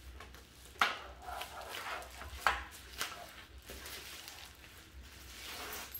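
Plastic and bubble-wrap packaging rustling and crinkling as the LED grow-light arms are handled and unwrapped, with two sharp clacks about a second in and again midway.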